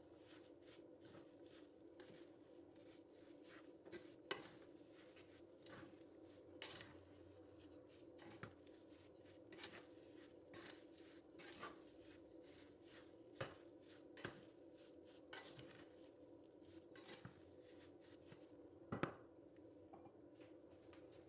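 Wooden spoon stirring grated apples and sugar in a small coated saucepan: faint scraping with about a dozen light, irregular knocks of the spoon against the pan, the loudest near the end, over a steady faint hum.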